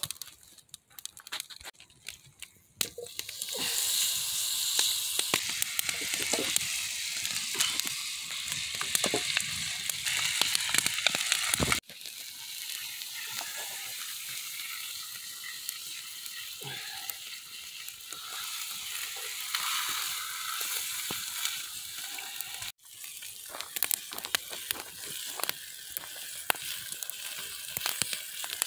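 Pieces of brook trout frying in a pan over an open wood fire: a steady sizzle that starts about three seconds in, softer after about twelve seconds. Sharp pops and crackles come near the start and again near the end.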